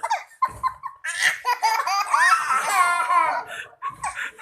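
Young child laughing hard: high-pitched belly laughter in short bursts, then a long run of laughter in the middle.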